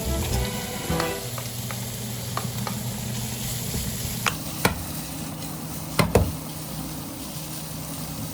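Food sizzling in a frying pan as it is stirred, with a few sharp clicks of a utensil against the pan, two close together about six seconds in.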